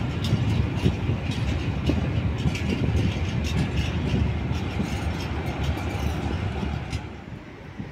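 The last high-sided open freight wagons of a goods train rolling past, a steady rumble with the wheels clicking over the rail joints. The sound dies away near the end as the tail of the train moves off.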